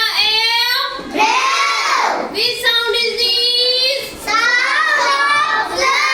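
A child's voice singing, high-pitched, with held notes and a swooping glide down and back up about a second in.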